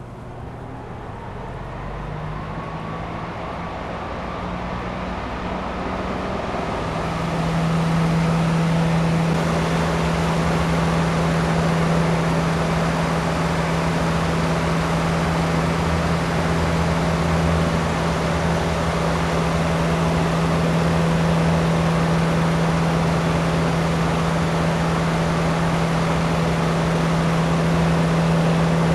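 Electric fan blowing on a small spinning autogyro rotor: a rush of air with a steady low hum, growing louder over the first several seconds and then holding steady.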